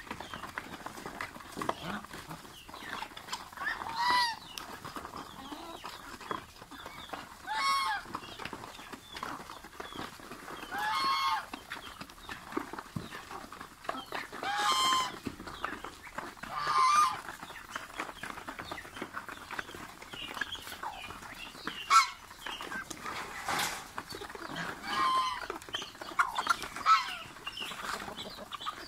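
Domestic geese honking, about seven loud single calls spaced a few seconds apart, over continual low clucking from chickens. A sharp knock sounds about three-quarters of the way through.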